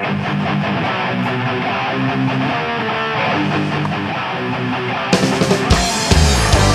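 Rock band playing: an electric guitar plays a riff alone, then cymbals, drums and bass come in about five seconds in.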